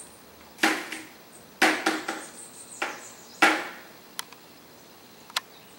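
About six sharp knocks, unevenly spaced over the first three and a half seconds, followed by two faint ticks near the end.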